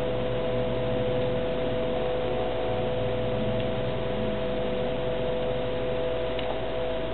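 Steady hiss with a couple of steady humming tones, with one faint tick near the end.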